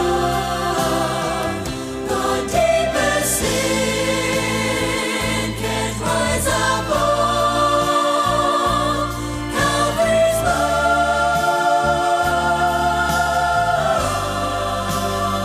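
A vocal group singing a gospel song in harmony, like a small choir, with long held notes sung with vibrato over a steady bass accompaniment.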